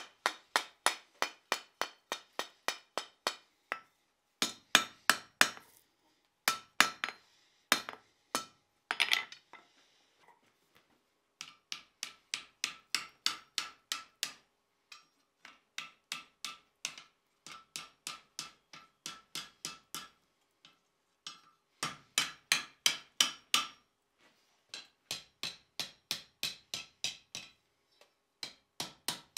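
Hand hammer striking red-hot steel bar stock on a steel anvil, about three to four blows a second in runs separated by short pauses, each blow followed by a faint ring from the anvil. The blows are bending the end of an old bolt over the anvil horn into a round ring-style handle.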